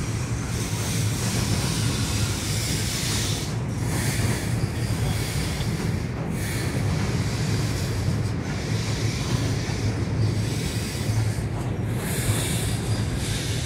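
Freight train of covered hopper cars rolling across a steel truss railroad bridge: a steady low drone with a hiss on top, the hiss dipping briefly every few seconds.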